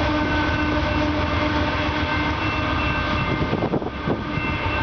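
Union Pacific coal train rolling past and pulling away: a steady rumble of locomotive and coal cars on the rails, with a steady high tone over it. The rumble turns rougher and uneven after about three and a half seconds as the train clears.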